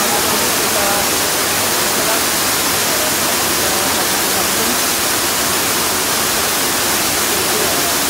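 Waterfall pouring into a rock pool: a steady rushing of falling water, with a few faint voices of people in the water.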